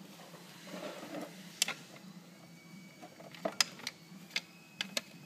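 Scattered sharp clicks and light taps of hands working the starter-motor cable connectors on a Jetsurf's ignition black box, one about a second and a half in and a quick cluster in the second half.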